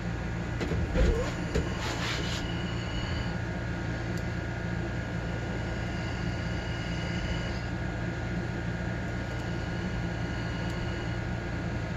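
Steady mechanical background hum, with a few faint clicks about one to two seconds in from a pick working the pins of an ASSA padlock cylinder under tension.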